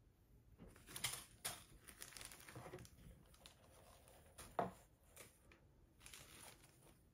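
Faint crinkling and rustling of plastic packaging being handled as pieces are taken out of a box, with sharper crackles about a second in and again about halfway through.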